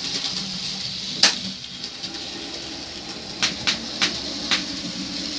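An N gauge model train running on the layout, a steady low hum with sharp clicks: one loud click about a second in and four lighter ones in quick succession past the halfway point.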